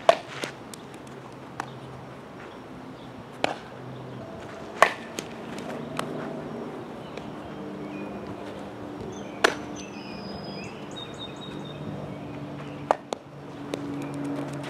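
Softball slapping into leather fielding gloves: several sharp, single claps a few seconds apart.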